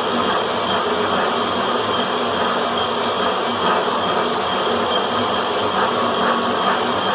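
Climax BB5000 portable line boring machine running steadily, its motor and drive giving a constant hum with several held tones.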